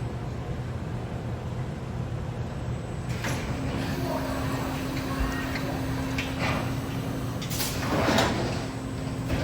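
Main body assembly automatic welding machine running through its demonstration cycle. Over a steady hum, a mid-pitched motor tone comes in about three seconds in and holds. Several short rushes of noise from the machine's moving parts follow, the loudest about eight seconds in.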